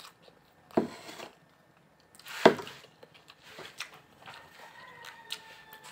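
Sounds of a person eating noodles with a fork and spoon at a plate: a short noise about a second in, a louder one about two and a half seconds in, and small clicks between. A faint steady tone comes in near the end.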